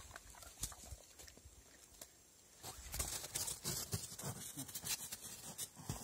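A dog foraging for meat scraps on crusted snow: irregular soft crunching and rustling, with a short lull about two seconds in and denser, louder crunching in the second half.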